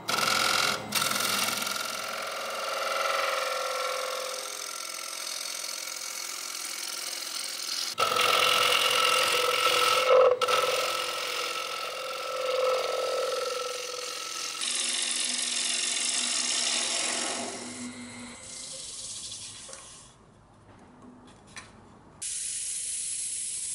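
Laguna wood lathe spinning a pine disc while a turning gouge shears across its face, a steady hum with a cutting hiss that changes abruptly several times. Near the end, sandpaper rubs steadily on the spinning disc.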